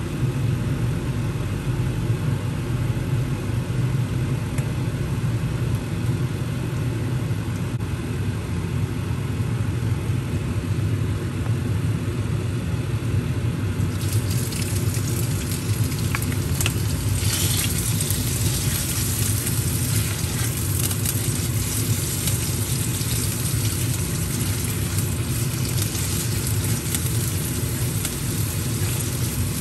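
A steady low fan hum, joined about halfway through by the sizzle of raw pork pieces dropped into hot oil in a wok, with a few light clicks of the spatula against the pan.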